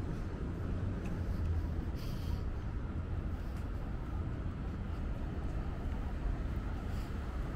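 Steady low rumble of downtown street traffic, with a faint click about two seconds in.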